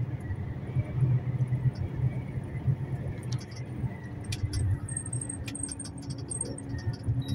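Steady low rumble of a truck running, with scattered light clicks and rattles from about three seconds in.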